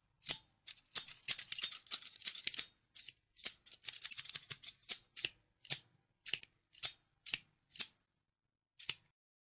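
Scissors snipping in crisp, sharp cuts: quick runs of snips in the first half, then single snips about every half second, with a last one near the end.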